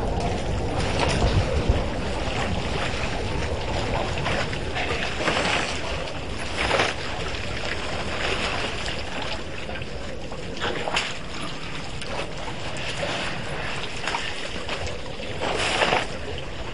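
Water sloshing and splashing as a herd of African elephants drinks at a waterhole, with a few brief louder splashes, over a steady rushing noise of wind on the microphone.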